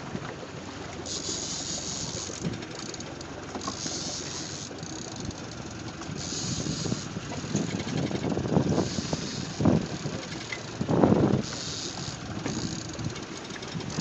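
Steady engine and wind noise on a sport-fishing boat at sea, with a hiss that comes and goes every two or three seconds.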